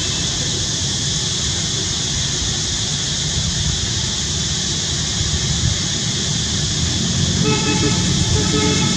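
Steady rumbling outdoor background noise. About seven and a half seconds in, several steady pitched tones start, stopping and starting.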